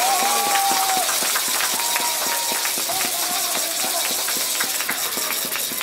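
Ice hockey rink sounds: skate blades scraping on the ice with many sharp clacks of sticks and puck, under faint distant shouting from the arena.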